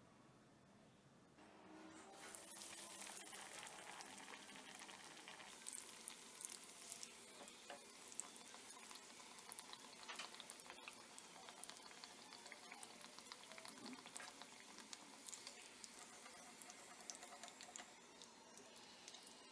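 Breaded chicken patties shallow-frying in hot oil in a pan: steady sizzling and crackling with many small pops, starting about two seconds in.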